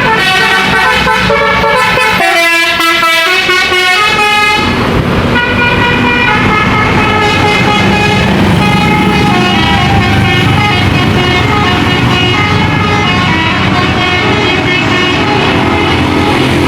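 Indonesian tour bus telolet horn: a multi-tone air horn playing a quick tune of changing notes, with a low engine rumble underneath from about five seconds in.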